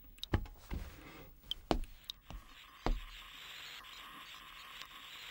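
A handful of sharp knocks or thumps in the first three seconds, then a steady soft hiss.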